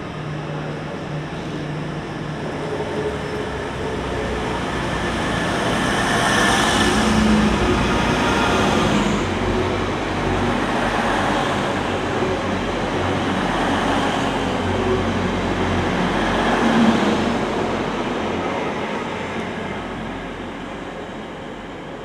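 Passenger train running along the platform. Its noise builds over the first few seconds, stays loud through the middle and fades near the end.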